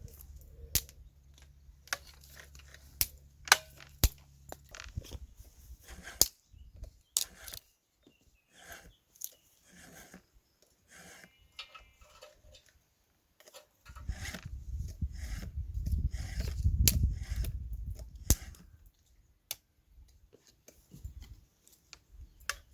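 Dry twigs and kindling for a campfire snapping and crackling in irregular sharp cracks, with a low rumble for a few seconds past the middle.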